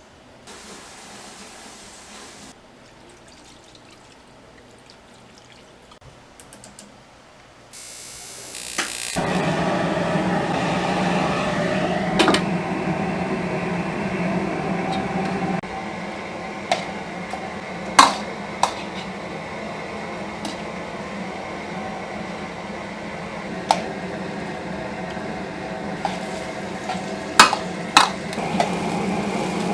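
Restaurant cooking noise: a steady rushing that comes in suddenly about nine seconds in and runs on, with sharp metal clinks of utensils on cookware every few seconds.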